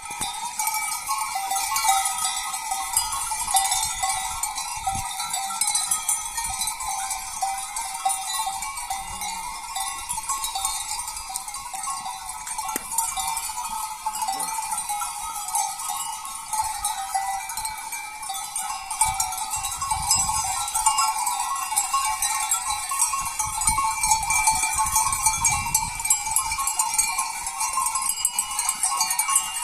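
Goat bells clanking continuously as Malagueña goats browse on olive prunings, many bells jangling together.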